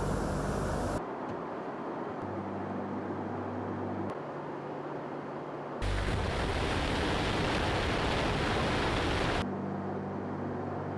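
Steady drone of Tu-95MS turboprop bomber engines, a low hum under a rushing noise, changing abruptly at several cuts. A louder rushing stretch runs from about six to nine and a half seconds in.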